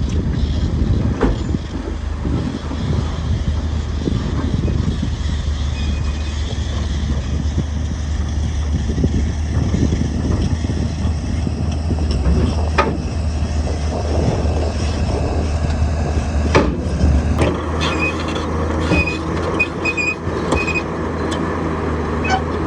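Heavy earthmoving machine's diesel engine running steadily with a low hum, with a few sharp clanks around the middle. Near the end the engine note changes and short high beeps sound several times.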